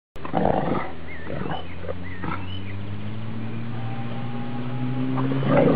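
Dogs growling in play as they wrestle, with rough snarly bursts over one long low growl that rises slightly in pitch.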